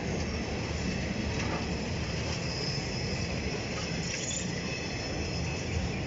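Passenger train carriages rolling past on a steel truss railway bridge: a steady rumble of wheels on the rails.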